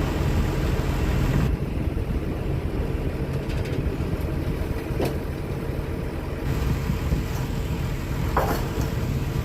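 An engine running steadily at idle, with a single sharp click about five seconds in.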